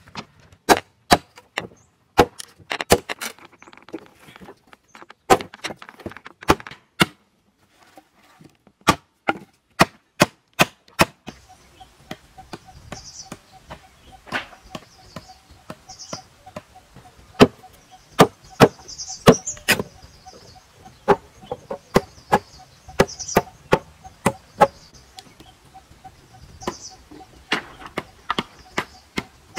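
Repeated sharp chopping and knocking on wooden poles, irregular single strikes and quick clusters, with a short pause about seven seconds in.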